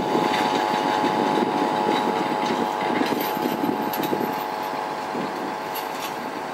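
Engine of a small track-maintenance rail vehicle (motor draisine) running at a steady pitch as it creeps along the track, its sound easing slightly near the end.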